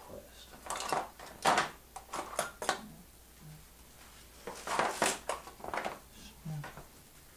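Metal pliers clinking and clattering against other hand tools on a workbench as they are put down and picked up: a run of sharp knocks and clinks early on, then a second cluster about two-thirds of a way toward the middle.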